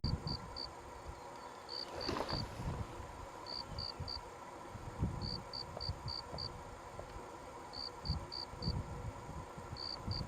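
A cricket chirping: short high-pitched pulses in bursts of three to five, repeating about every two seconds, with soft irregular low thuds underneath.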